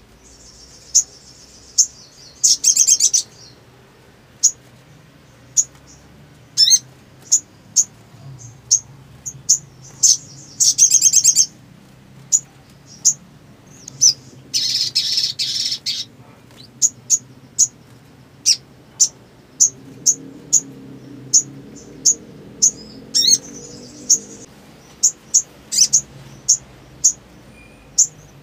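Little spiderhunter (sogok ontong) calling: a long string of sharp, high chips, about one or two a second. These are broken by four rapid trills of about a second each.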